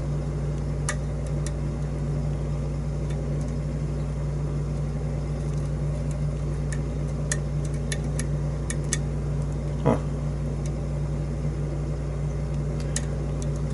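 Faint, irregular ticks and clicks of a lock pick and tension wrench working the pins of a challenge lock, over a steady low hum.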